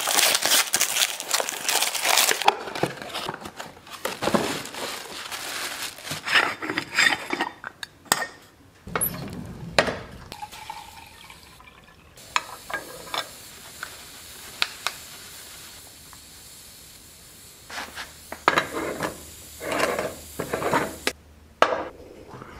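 Wrapping paper tearing and crinkling off a gift box. This is followed by the clinks and clatter of an aluminium stovetop moka pot being handled: water is poured into its base, and the metal parts are fitted and screwed together.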